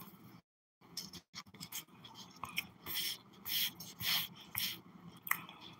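Chewing a mouthful of solid-set cornstarch, with short irregular crunches and crackles. The sound cuts out completely for a moment about half a second in.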